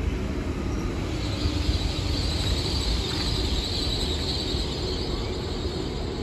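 Great Western Railway Class 802 (IET) train running: a steady low rumble, with a high hiss through the middle few seconds.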